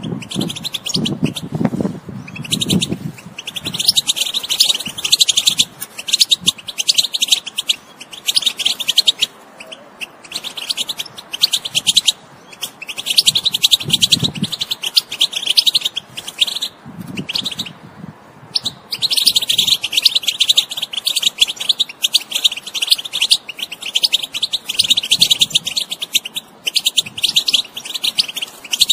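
European goldfinch singing: fast, twittering song phrases a few seconds long, separated by brief pauses.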